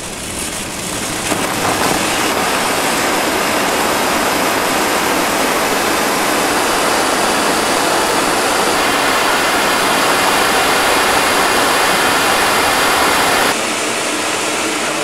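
Small hybrid rocket motor firing, a perspex (acrylic) tube fuel grain burning with compressed oxygen: a loud, steady rushing noise of exhaust. It builds over the first second or two and drops a little in level near the end.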